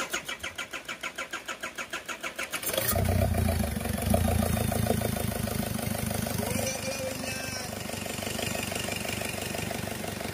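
Isuzu Trooper 4JX1 four-cylinder turbodiesel being cranked by the starter, chugging about five times a second for almost three seconds. It then catches and settles into a steady idle.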